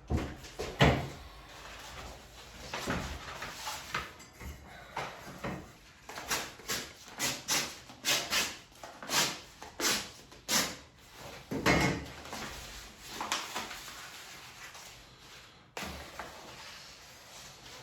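Roll of wallpaper being handled and cut for its first length: rustling and crackling paper, with a run of short sharp crackles at about two a second in the middle.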